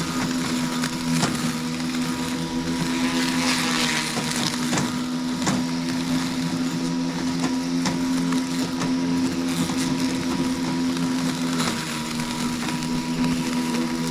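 Robotic lawnmower's motor running steadily: a continuous hum with occasional light knocks.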